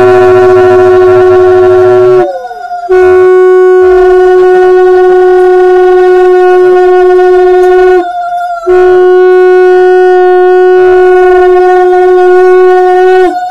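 Two conch shells (shankha) blown loudly in long, steady blasts. One holds a lower note in three long blasts, with short breaks for breath about two and eight seconds in. A second, higher note sounds on through those breaks.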